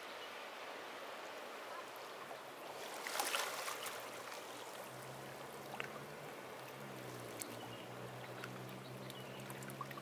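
Ocean waves washing onto the beach: a steady surf hiss, with one wave breaking louder and crackling about three seconds in. From about halfway, a low steady motor hum joins underneath.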